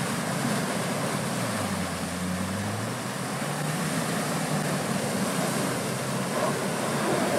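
Land Rover Defender 90 P300's turbocharged four-cylinder petrol engine revving up and down under load as its wheels churn through deep mud and water, over a steady wash of splashing and sprayed mud. The revs dip about two seconds in, then climb again.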